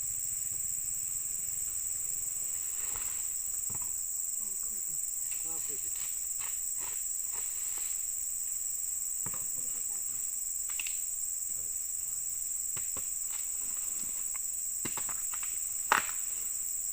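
A steady, high-pitched insect chorus, with scattered faint clicks and one sharp click near the end.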